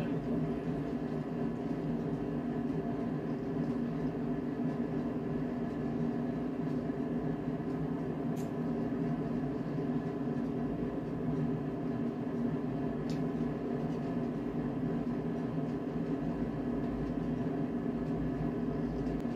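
Steady mechanical hum of a running appliance, with two faint clicks partway through.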